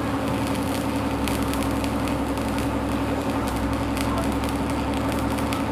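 Electric arc (stick) welding running a vertical bead: a steady arc crackle and sizzle, with a steady low hum underneath.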